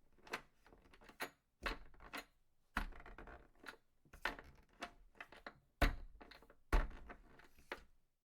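A series of about a dozen irregular knocks and clatters, each short with a brief ring after it, the two loudest about two-thirds of the way through.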